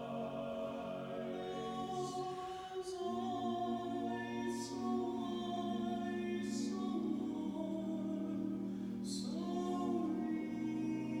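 Barbershop singers performing a cappella in close harmony, holding long sustained chords that shift about three seconds in and again near nine seconds, with crisp 's' consonants sung together.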